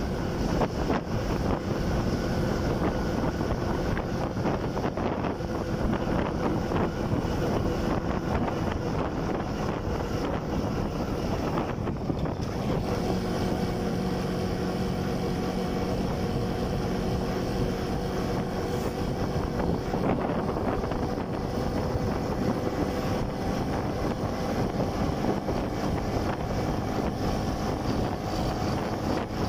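Motorcycle engine running steadily while riding, with wind buffeting the microphone. The engine note dips and changes pitch about twelve seconds in, then holds steady again.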